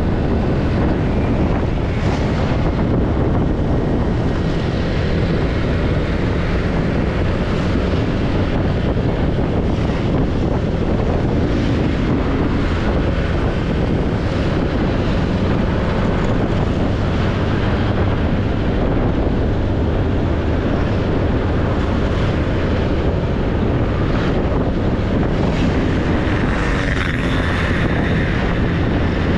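Wind rushing over the camera microphone on a moving motorcycle, with the bike's engine and road noise running steadily underneath.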